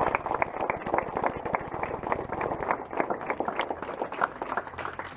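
A small crowd applauding, many hand claps thick and fast, dying down near the end.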